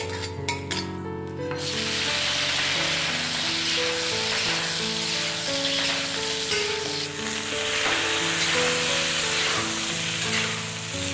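A spatula clicks and scrapes against a wok as ginger fries in oil. About a second and a half in, a loud, steady sizzle starts as chicken pieces hit the hot oil and are stir-fried.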